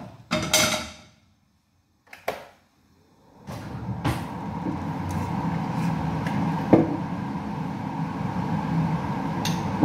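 A couple of knocks and clicks, then a kitchen fan starts and runs steadily from about three and a half seconds in: a low hum with a faint steady whine.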